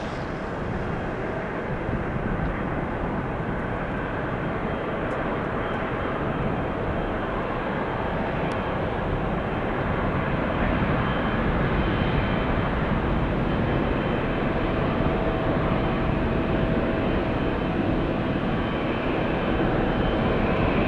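Engines of a large jet airliner running, a steady rushing noise with a faint high whine, growing slightly louder partway through.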